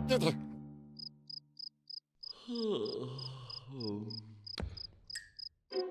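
Cartoon cricket sound effect chirping steadily, about three chirps a second, the stock gag for an awkward silence, while a loud musical hit at the start dies away. A few short falling pitched sounds come in the middle, and a sharp click about four and a half seconds in.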